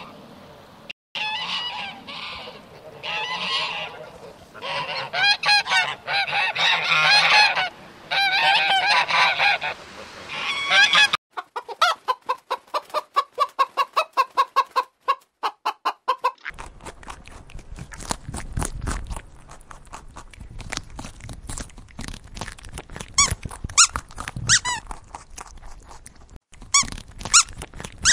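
Greylag geese honking in repeated calls for about the first ten seconds, then, after a sudden cut, a hen clucking in a quick, even run of short notes. After that come scattered soft clicks and short chirps over a low rumble.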